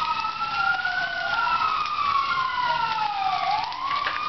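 Emergency vehicle sirens wailing, two of them slowly rising and falling in pitch out of step with each other.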